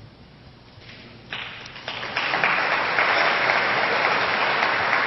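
A large audience breaking into applause: scattered claps begin about a second in and swell within a second into full, steady clapping.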